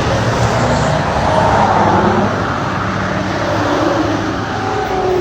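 Highway traffic rushing past close by, a steady road noise with one vehicle passing loudest about a second and a half in.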